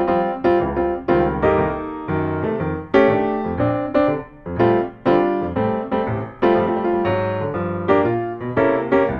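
Background piano music: a steady run of struck notes, each ringing and fading.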